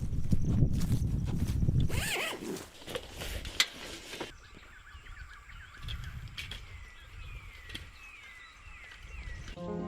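A loud rush of low noise for the first two seconds, then a sharp click. After that, small birds chirp in quick rising and falling notes over quiet wetland air.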